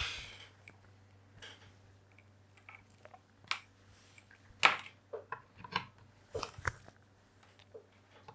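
Handling noise of cables and small connectors being fiddled with by hand: a handful of short, scattered clicks and scrapes as multimeter test leads are readied to connect to a temperature probe, the loudest click about halfway through.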